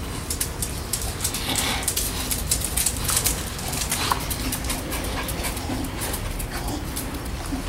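Staffordshire Bull Terrier puppy whimpering in a few short squeaks, among many small clicks.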